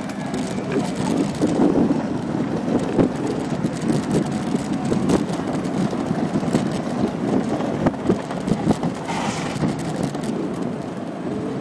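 Ride noise from small-wheeled electric scooters and skateboards rolling over asphalt and paving: a steady rumble with sharp knocks and rattles at uneven intervals as the wheels hit joints and bumps, with wind on the microphone.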